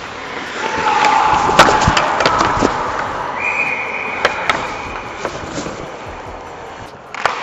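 Ice hockey play heard close up: skates scraping the ice and sharp clacks of sticks and puck, with two held tones about a second long, the second one higher.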